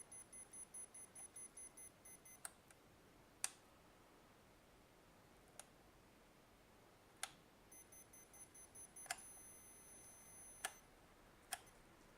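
A digital multimeter's piezo beeper sounding in quick pulses, about four a second, which stop about two seconds in. A series of sharp clicks follows, and the beeper comes back, pulsing and then held, for a few seconds later on. The whole is faint.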